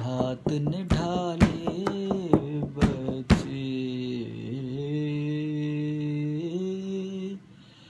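A man singing an Urdu/Hindi song solo, unaccompanied, with sharp taps keeping time through the first three seconds or so. He then holds one long note, which stops shortly before the end.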